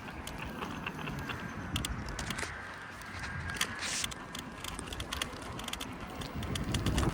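Scooter without suspension rolling over pavement, its frame and wheels rattling and clicking steadily with small jolts.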